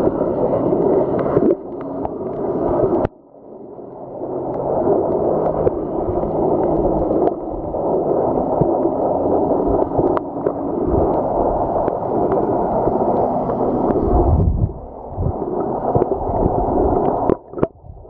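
Muffled water noise heard underwater just below the surface: steady sloshing and bubbling, with the sound cutting out suddenly about three seconds in and again near the end.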